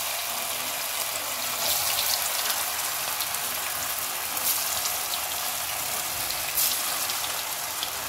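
Rice fritters deep-frying in a wok of hot oil, a freshly added batch: a steady crackling sizzle with a few sharper pops.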